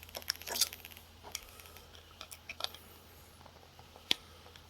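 Scattered light metal clicks and taps of needle-nose pliers working at a conical pin in a tiny travel alarm clock's movement, with the sharpest click about four seconds in.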